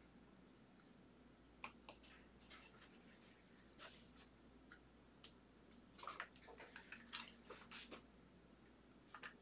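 Faint, scattered clicks and rustles of trading cards and their plastic holders being handled and sorted, with a cluster of quick ticks in the middle of the stretch.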